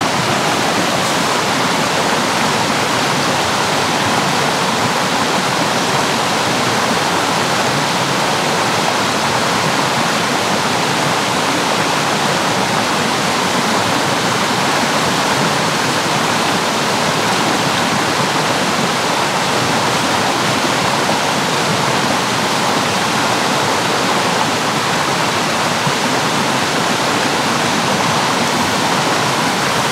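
Water rushing steadily.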